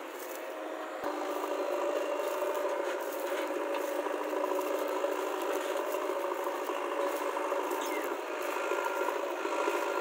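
JCB 3DX backhoe loader's diesel engine running steadily under load while the backhoe arm digs and dumps dirt, with rattling and scraping over it; it gets louder about a second in.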